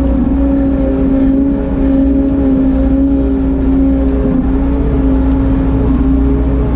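Bobcat 743 skid steer's diesel engine running steadily at working throttle, its pitch dipping slightly now and then under load.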